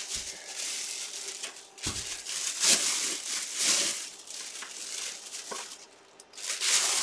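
Clear plastic bag crinkling in irregular handfuls as a football helmet is pulled out of it.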